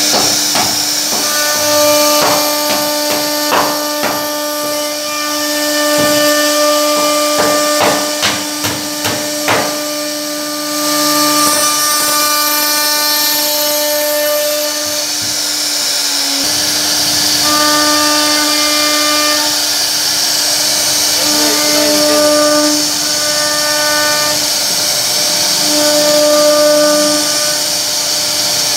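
CNC router spindle running at a steady high pitch as its bit routes a profile into a wooden door panel, with a hiss of cutting over it. A run of sharp, irregular ticks comes in the first third. The pitch dips slightly about halfway through.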